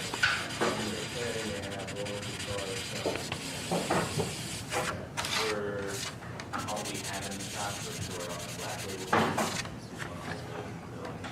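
Hand-leveling a hardened ding fill on a nitrocellulose finish: irregular rubbing and scraping strokes across the surface, some sharp, with brief squeaky chatter, flattening the fill flush with the surrounding finish.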